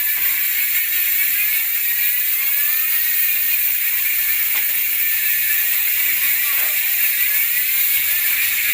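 GUB six-pawl rear bicycle hub freewheeling, its pawls clicking so fast against the ratchet that they merge into a steady, high-pitched buzz.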